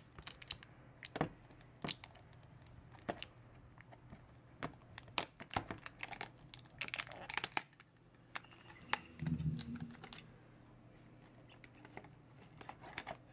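Scattered light clicks and taps of a clear plastic iPod Touch box being handled, its snug plastic lid worked loose and lifted off.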